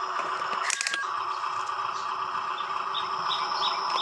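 Electric drive motor and gearbox of a Huina RC dump truck whining steadily as it drives over dirt, with a few sharp clicks about a second in. Short high bird chirps repeat in the background in the second half.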